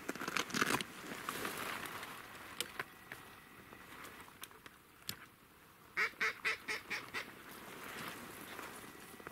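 Duck quacks: a short cluster near the start, a few single quacks, then a quick run of about six quacks about six seconds in.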